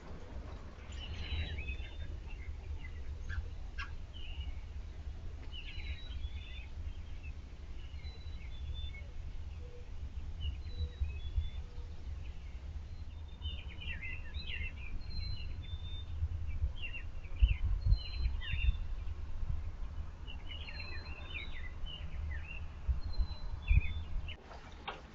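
American robins chirping: clusters of short, high chirps that come and go in bursts, over a steady low rumble with a few louder bumps.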